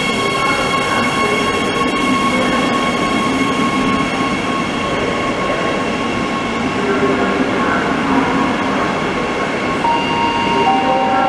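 Electric double-deck passenger train, hauled by a Bombardier TRAXX AC locomotive, running along the platform: steady running noise with a high, steady whine over it. Near the end a few new tones come in, each a step lower in pitch.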